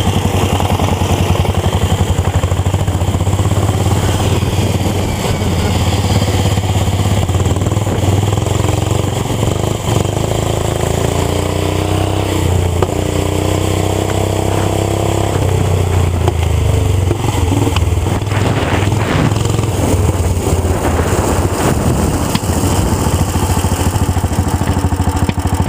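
Racing lawn tractors' small gas engines running hard near the microphone, a loud steady drone. A second engine note rises and falls in pitch around the middle.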